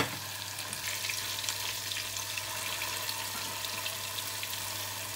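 Tofu cubes frying in shallow oil in a small pot: a steady sizzling hiss with fine crackles, over a low steady hum. A sharp clack right at the start as a ceramic plate is set down on the cooktop.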